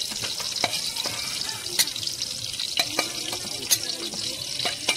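Hard-boiled eggs frying in hot oil in a nonstick kadai, a steady hiss broken by about five sharp clicks roughly a second apart.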